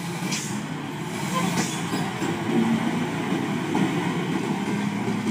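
Diesel engine of a laden container truck running steadily as it crawls around a tight downhill bend, with two short hisses about half a second and a second and a half in.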